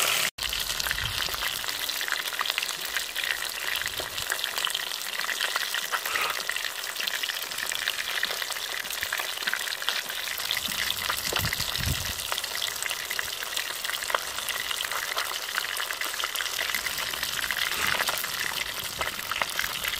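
Whole fish frying in hot oil in a cast-iron pot: a steady, dense sizzle of fine crackles and pops.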